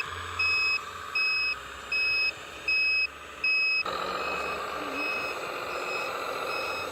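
Reversing alarm on a radio-controlled truck or construction machine, beeping steadily about one and a half times a second over a low motor hum. A little past halfway the beeps turn fainter and a louder steady whirring noise takes over.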